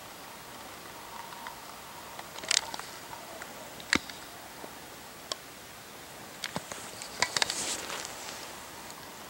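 Scattered sharp clicks and short rustles over a steady faint hiss, most clustered near the end.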